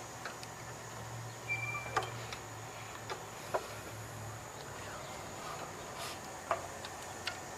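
Sparse light clicks and taps of metal as the alternator's mounting bolt is worked through the bracket by hand, over a low steady hum.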